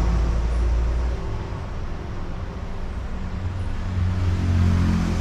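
Low, steady hum of a motor vehicle running, shifting in pitch about a second in and swelling again near the end.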